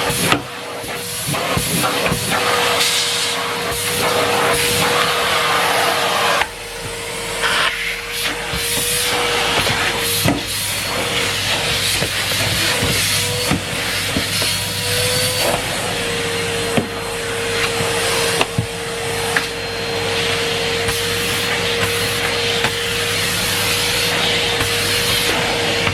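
Numatic Henry Pet vacuum cleaner running, its motor giving a steady whine under a rushing hiss of air that swells and fades as the nozzle is worked over the floor, with a few short knocks.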